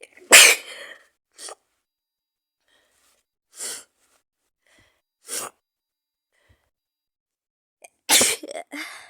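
A woman with a head cold sneezing: one loud sneeze just after the start and another about eight seconds in, with short, quieter breath sounds between them.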